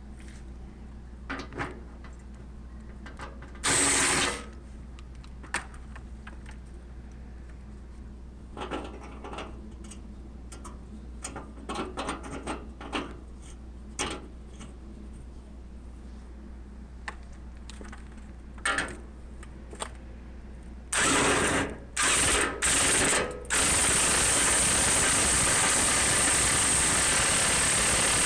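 Scattered clicks and knocks of tool handling, then a power driver starts about 21 s in with three or four short bursts before running steadily, driving a new anchor bolt through the steel door frame into concrete.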